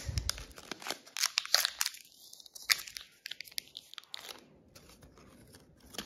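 Origami paper crinkling and crackling as fingers fold and crease it: a run of small sharp crackles in the first few seconds that thins out and quietens toward the end.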